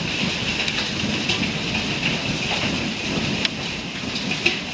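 Heavy hail falling: a dense, steady clatter of hailstones striking, with sharper single knocks now and then.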